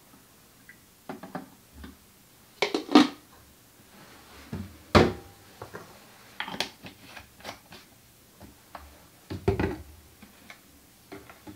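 Plastic chemical bottles, a funnel and a measuring jug being handled and set down on a counter. There are a series of separate knocks and clicks, the loudest about three, five and nine and a half seconds in, one with a short clink.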